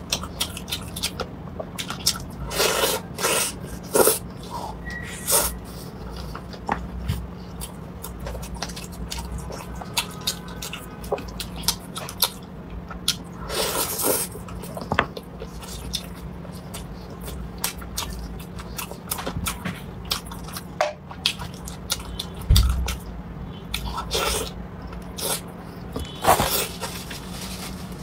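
Close-miked mouth sounds of eating chicken wings: chewing, sucking the meat off the bones and lip smacks, in short irregular bursts and clicks. A faint steady hum runs underneath.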